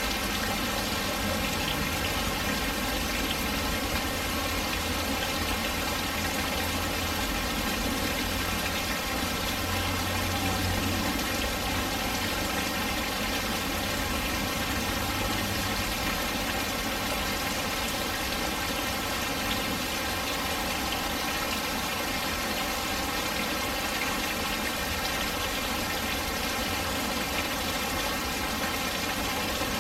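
Rain falling steadily on a patio, a dense even hiss with a low rumble underneath that is stronger in the first half.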